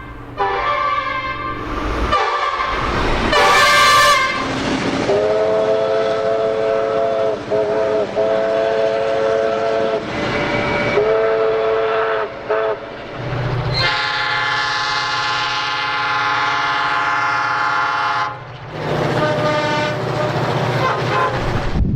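A series of train horn blasts from different trains, cut one after another. Short blasts come first, then a steady horn of several notes sounding together for several seconds with brief breaks, then a long blast over a low hum about halfway through, and more blasts near the end.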